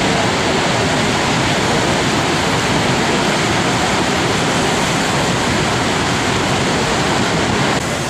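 Steady, loud rush of water going over Niagara's Horseshoe Falls, a dense even noise with no distinct events. The level drops slightly just before the end.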